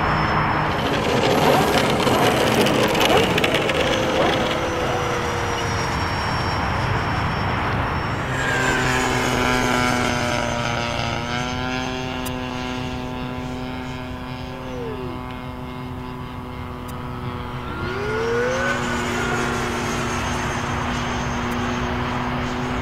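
E-Flite ViperJet's 70 mm electric ducted fan whining in flight, loudest as a rushing pass in the first few seconds. Later its steady whine dips in pitch and climbs back up twice.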